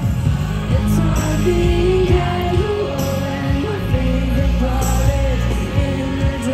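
Live pop song played loud through the stage speakers: a woman singing a melodic line over a band with steady drum hits, bass and guitar, recorded from within the crowd.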